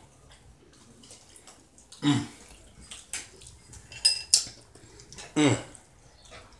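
A person eating a smoked beef rib: short clicks and smacks of chewing and of hands pulling meat from the bone, with two brief hums falling in pitch, about two seconds in and again about five and a half seconds in.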